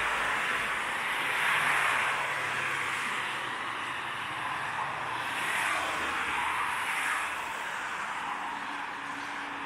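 Steady road traffic, with cars passing close by and their tyre noise swelling and fading every few seconds.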